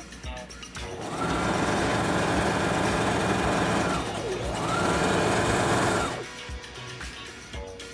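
Domestic electric sewing machine stitching in two runs, the first about three seconds long and the second about a second and a half, with a short stop between them about four seconds in. At the start of each run the motor whines up to speed.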